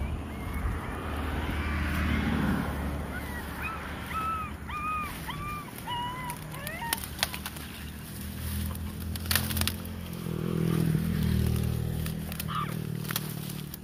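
Very young puppies crying: a string of short, high whining cries that rise and fall, about two a second, fading out around seven seconds in, with a few fainter cries near the end. A steady low rumble runs underneath.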